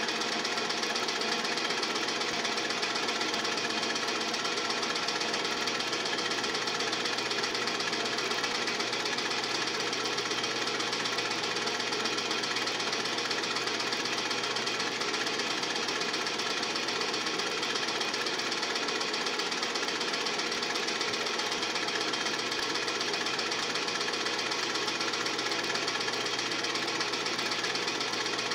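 Film projector running with a steady, fast mechanical clatter.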